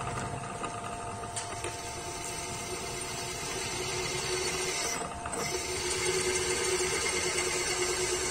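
Milling machine with a 3 HP motor running, its spindle turning a twist drill that bores a hole through a steel workpiece: a steady whine with a cutting tone that grows louder in the second half, after a brief dip a little past halfway.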